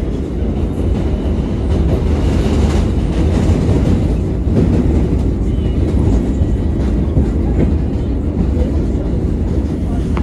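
R142A subway train running, heard from inside the car: a steady rumble of wheels on rail, getting louder over the first couple of seconds as it pulls out of the station and picks up speed.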